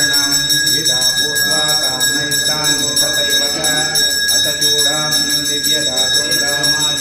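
Temple bells ringing continuously, a steady high metallic ringing that holds through, with voices chanting beneath it.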